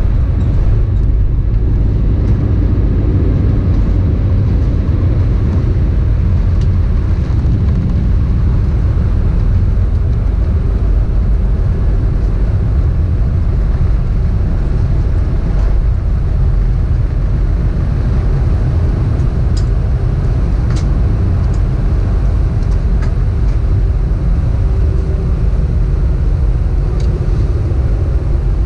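Steady low rumble inside the cabin of an Airbus A319 rolling on the ground after landing, with a few faint rattles about two-thirds of the way through.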